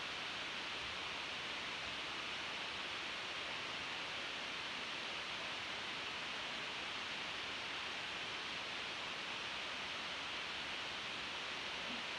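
Steady, even hiss of background room noise, with no distinct sounds standing out.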